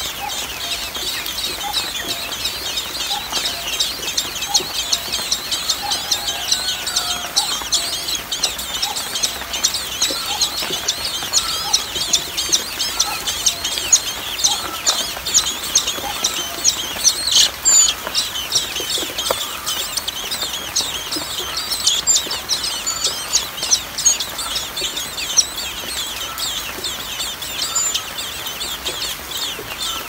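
Nestling songbirds begging in the nest: a continuous run of rapid, high-pitched cheeps, with softer, lower call notes scattered through.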